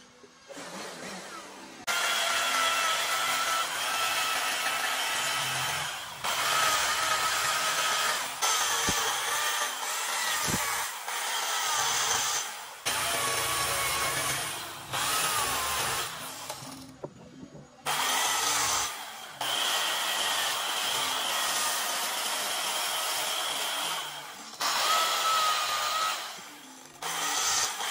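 Chainsaw cutting into a hardwood root burl in a series of long cuts, its pitch wavering and dipping as the chain bites. The saw stops several times between cuts and starts again at full speed.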